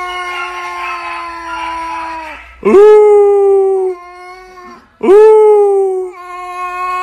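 Long, drawn-out animal howls: one steady held note, then two louder calls, each swooping up at its start, about two and a half and five seconds in.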